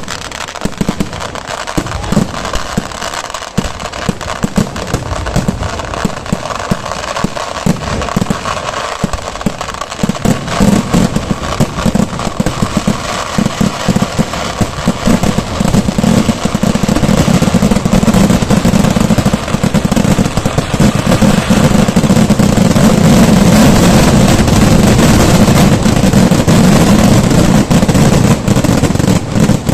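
Fireworks display: a dense barrage of bangs and crackling that thickens about a third of the way in and merges into a near-continuous, very loud din through the latter half.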